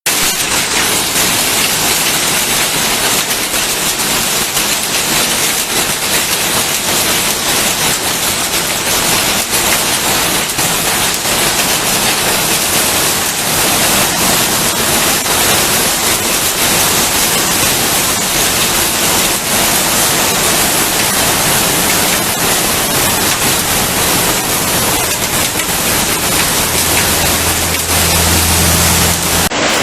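Heavy rain pouring down in a summer storm: a loud, steady hiss. A low hum joins it near the end.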